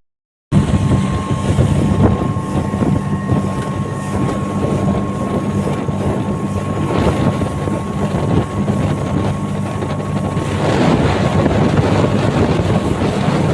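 Speedboat engine running steadily at speed, with wind buffeting the microphone. The rushing noise grows louder about ten seconds in.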